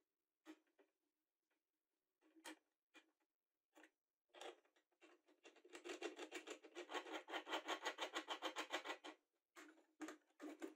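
Stainless worm-drive hose clamp being worked through its screw housing: a quick, even run of small metallic clicks, about seven a second, lasting some four seconds from just before the middle. Scattered handling clicks and taps come before and after it.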